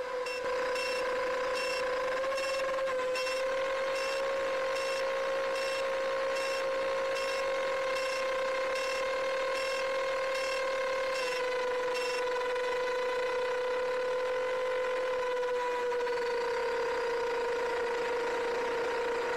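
Whine of a 7-inch FPV quadcopter's Emax Eco 2807 1300kv motors and propellers in steady cruising flight, heard from the onboard camera, its pitch dipping slightly about eleven seconds in and again near sixteen. Short high beeps repeat about twice a second over it until about twelve seconds in.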